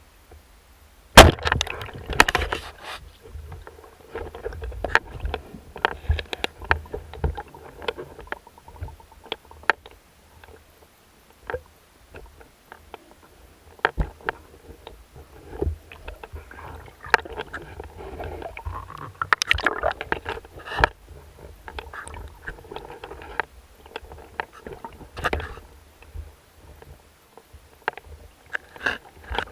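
Water sloshing and gurgling around the camera, with irregular clicks and knocks throughout; the loudest knock comes about a second in.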